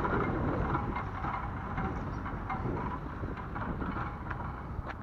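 Footsteps on a tarmac path at a steady walking pace, about two a second, over a steady low rumble.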